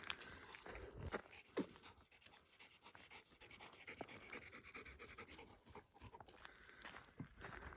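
Dog panting faintly, with a few small clicks.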